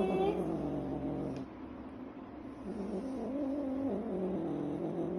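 Scottish Fold cat giving long, low, wavering angry yowls. One trails off about a second and a half in, and another starts about halfway through.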